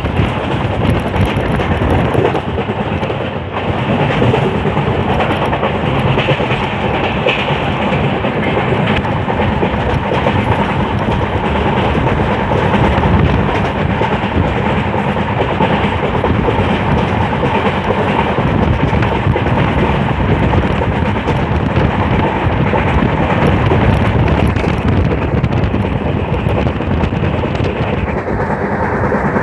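Passenger train carriage running along the track at speed, heard through an open window: a steady rumble and rattle from the running gear, with many short knocks from the wheels over the rails.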